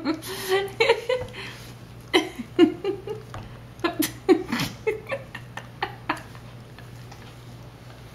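A baby's short grunts and little vocal sounds with mouth clicks while she is spoon-fed rice cereal. They come in scattered bursts and die away after about six seconds.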